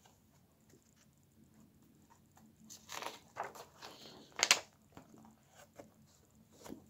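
Pages of a thin softcover picture book being turned by hand: a few papery rustles from about three seconds in, with one sharp page snap about halfway, then a couple of faint ticks.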